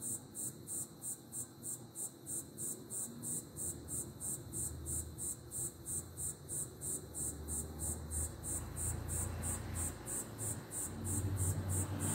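Cricket chirping in a steady high-pitched pulse, about three chirps a second. A low rumble comes in underneath about eight seconds in.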